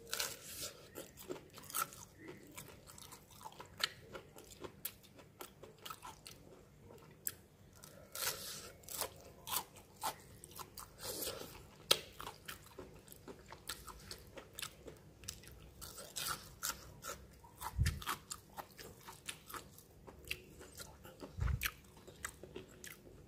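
A person biting into and chewing crispy breadcrumb-coated fried chicken nuggets: irregular crunching and chewing, with two dull low thumps in the second half.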